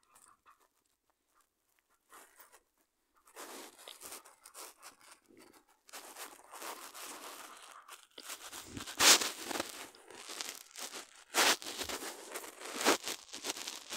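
Rustling and crackling noise, like handling or crumpling close to a microphone. It starts about three seconds in, after a near-silent stretch, and grows louder about halfway through, with several sharp crackles near the end.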